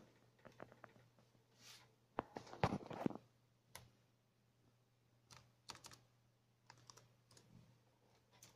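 Laptop keyboard typing: scattered key clicks, with a quick, louder run of keystrokes about two to three seconds in and a few more groups later, over a faint steady low hum.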